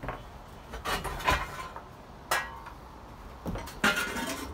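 Metal knocking and clinking in a steam locomotive's cab: several separate sharp clanks, the loudest near the end with a short ringing tail.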